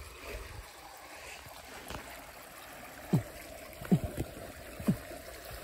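A small stream rushing and trickling steadily, with three short thumps about a second apart in the second half.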